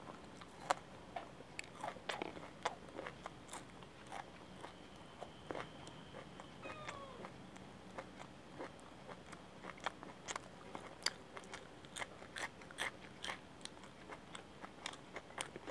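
Close-miked crunching and chewing of crispy deep-fried piyaju (lentil and onion fritters) and bites of raw green chilli: a steady run of sharp, crisp crunches, thickest in the second half.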